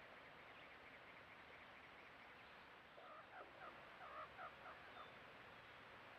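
Greater roadrunner clucking: a run of about eight short, chicken-like clucks, about four a second, starting about three seconds in. This clucking is one of the roadrunner's natural calls.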